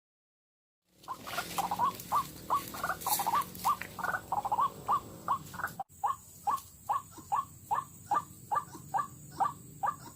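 White-breasted waterhen (ruak-ruak) calling: a long run of short, evenly repeated calls, about two to three a second, starting about a second in and broken off briefly near the middle.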